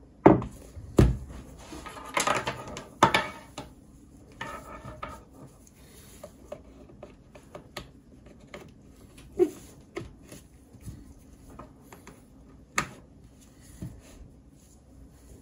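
Handling noises of an M1 Mac mini being moved on a wooden desk by gloved hands and having its cables plugged in: a run of knocks, clicks and rubbing, busiest in the first few seconds, then a few single sharp clicks.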